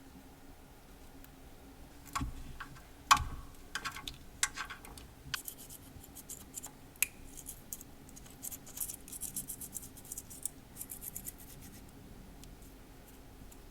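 Hand work on an engine: a few sharp clicks and knocks of tools and parts being handled, the loudest about three seconds in, then a few seconds of light scratchy rubbing.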